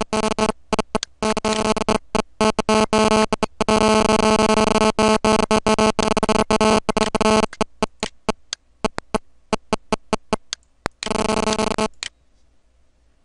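Music playing from a computer media player, captured badly garbled: a steady buzzing tone that stutters, cutting in and out many times, with the cuts coming more often after the middle, then stopping abruptly near the end.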